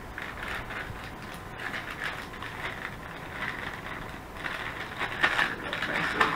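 Plastic MRE hot beverage bag crinkling and rustling as it is shaken and handled, mixing water with spiced apple cider powder. The crinkling grows louder about four and a half seconds in.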